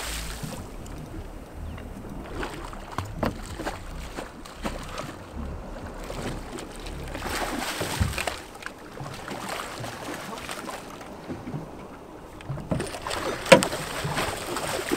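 A hooked cobia thrashing and splashing at the surface right beside the boat's hull, in bouts, with water sloshing in between. A few sharp knocks near the end.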